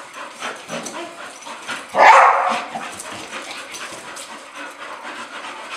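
A dog gives one loud, sharp bark about two seconds in, an excited bark at play with a toy; fainter whines and yips come and go around it.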